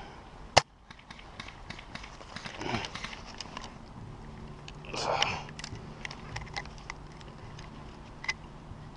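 A single sharp snap about half a second in, then scattered small clicks and knocks, with two brief muffled voice-like sounds near 3 and 5 seconds.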